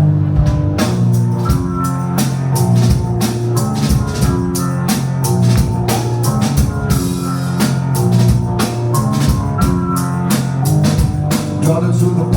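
Live rock band playing a song's instrumental intro. Held low notes come first, then a steady drum-kit beat comes in about a second in, over bass and repeating sustained notes.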